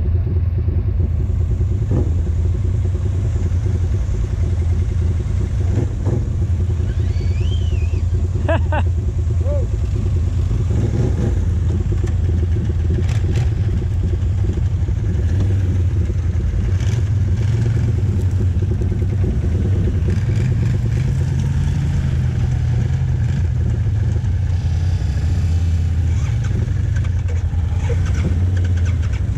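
ATV engines running steadily, with a deep, even drone from the quad the microphone rides on. A few short, high squeaks about eight seconds in.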